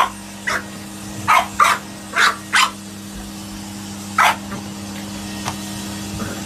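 A puppy barking in short, sharp yaps at a vacuum cleaner, several in quick pairs over the first few seconds and a single one about four seconds in. A running vacuum cleaner's motor drones steadily underneath.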